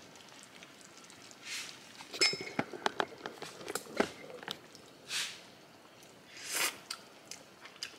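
Someone tasting soup from a spoon, with a few soft slurps and small mouth clicks and lip smacks in between.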